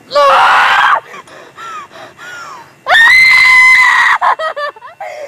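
A woman screaming in terror: a short scream right at the start, then gasping whimpers, then a longer, high-pitched held scream about three seconds in that breaks into short sobbing cries.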